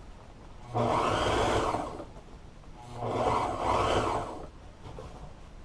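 Sewing machine stitching in two short runs, each a second or so long, with a brief stop between, as the seam is worked slowly around a corner along the piping.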